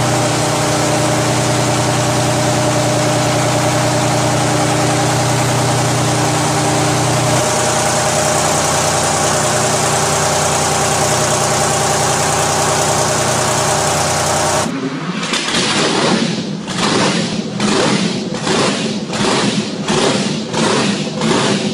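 The THOR24 custom semi truck's twelve-supercharger engine running steadily. About fifteen seconds in it cuts to another recording of the engine, pulsing evenly about one and a half times a second.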